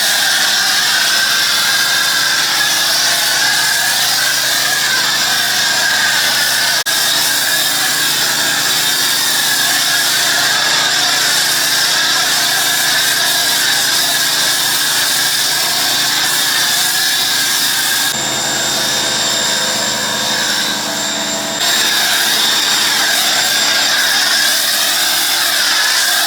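Pressure washer running steadily under load while spraying degreaser onto a skid steer, a constant motor drone under the hiss of the spray. About 18 seconds in the spray changes for a few seconds before returning to its steady sound.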